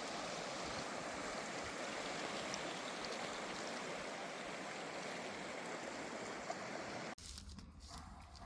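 Flowing river water rushing steadily under a footbridge. It cuts off abruptly about seven seconds in.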